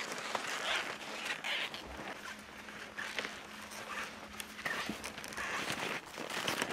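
Touring skis sliding over snow in a steady stride, a crunchy swish about every second, with small sharp clicks in between.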